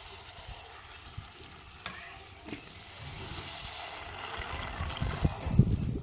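Puris deep-frying in hot oil, sizzling steadily as a wire mesh skimmer presses them under and stirs them. A few low thumps near the end, the loudest about five and a half seconds in.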